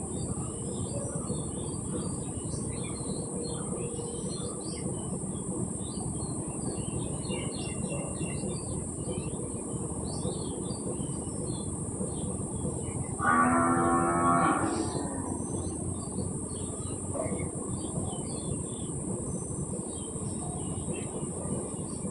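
A single drawn-out, low-pitched animal call a little past the middle, over scattered faint bird chirps and a steady high hiss.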